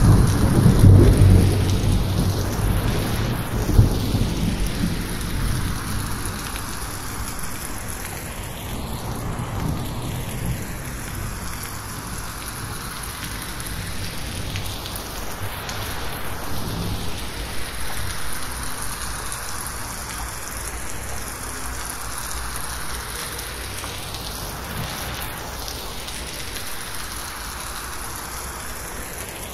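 Heavy rain falling on a corrugated metal roof, with a low rumble of thunder in the first few seconds that then dies away. The whole sound is slowly panned around the listener as 8D audio.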